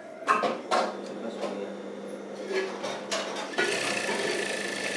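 Industrial lockstitch sewing machine: a few clicks and knocks, then about three and a half seconds in the machine starts and runs steadily with a high whine, freshly refilled with oil.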